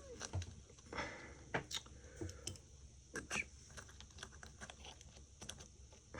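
Small, irregular clicks and taps as an iPhone 5 motherboard and its connectors are handled and fitted into the phone's housing.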